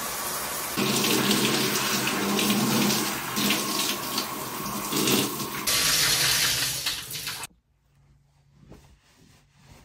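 Shower running, the water noise swelling and dipping, then shut off abruptly about seven and a half seconds in.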